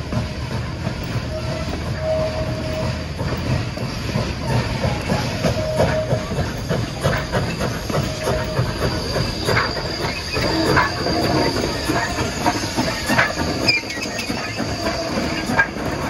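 Rail vehicle rolling over track, wheels clicking irregularly over rail joints, with short spells of wheel squeal and a thin high whine.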